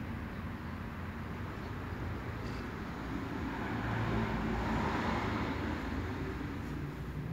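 Steady street traffic noise, swelling for a second or two about four seconds in as a vehicle passes.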